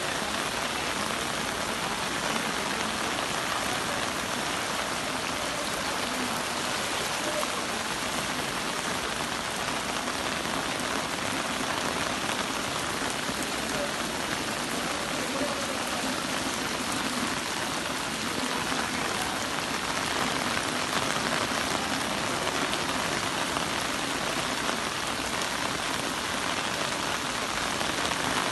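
Heavy rain falling steadily, pouring down onto hard surfaces and water.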